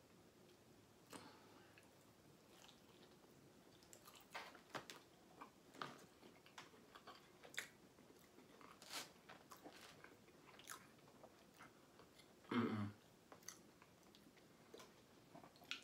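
Faint chewing of food eaten close to the microphone: scattered soft mouth clicks and smacks, with one louder short sound about twelve and a half seconds in.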